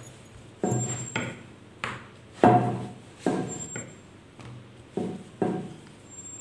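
Wooden rolling pin rolling out soft dough on a wooden board: a string of short knocks and rolling rumbles, roughly one every half second to second.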